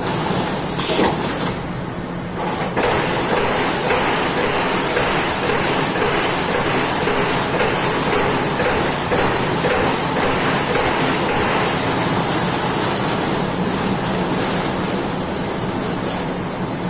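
Amada Pega 357 CNC turret punch press punching sheet metal, with a rapid run of evenly spaced strikes that starts about three seconds in.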